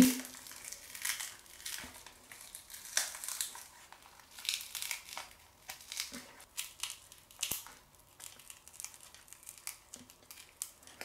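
Shattered smartphone screen glass crackling and crinkling as the cracked display panel is peeled apart by hand, in many small irregular crackles and ticks.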